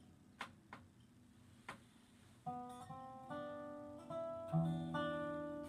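Resonator guitar played lap-style: a few faint clicks, then from about halfway a slow run of plucked notes that ring on and overlap, one low note standing out near the end.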